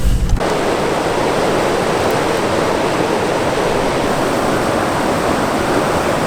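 Steady rush of fast-flowing spring-fed stream water. A low rumble cuts off about half a second in.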